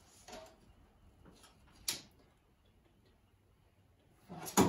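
Light taps and clicks of hand work on wood overhead, with one sharper click about two seconds in, then near silence, and a short cluster of louder knocks at the end.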